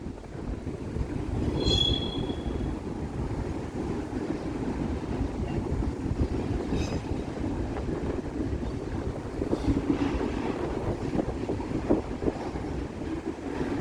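Freight cars of a long manifest train rolling past on the rails: a steady rumble and clatter of steel wheels over the track, with a brief high squeal about two seconds in.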